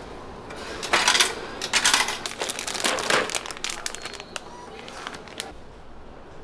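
A hand pushing through a vending machine's plastic take-out flap and pulling out the purchased item: clattering and rustling, loudest in the first few seconds, then a few lighter clicks.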